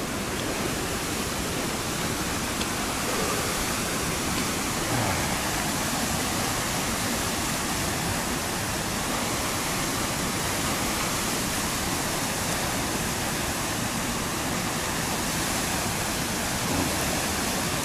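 Steady rushing of a brook's water tumbling over rocks: an even, unbroken hiss.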